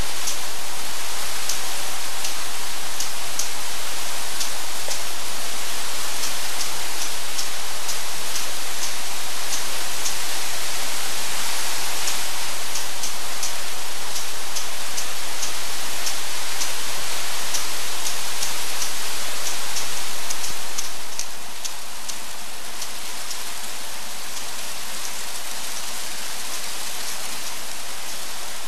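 Steady airy hiss with scattered light crackling ticks, from cooling fans blowing into plastic garbage bags as they inflate and deflate. About three quarters of the way through, it drops to a softer, even hiss and the ticks stop.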